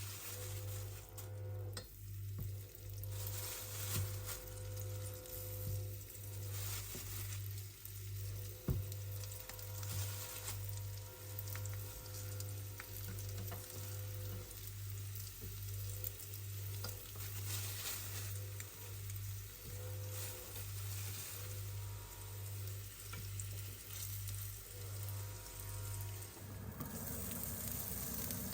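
Smelt frying in hot oil in a pan, a steady sizzle with occasional pops, over a low hum that pulses a little faster than once a second.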